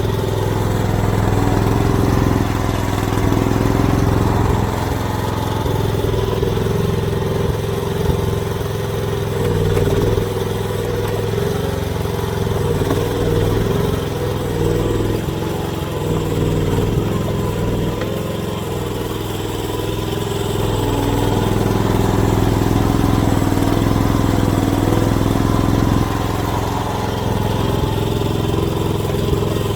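AGT mini excavator's small engine running steadily with a constant low hum. The engine note swells and eases every few seconds as the machine works.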